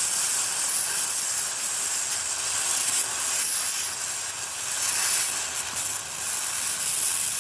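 Multiplaz 3500 plasma torch hissing steadily as it welds through heavily rusted steel plate without filler rod, the hiss wavering slightly in level.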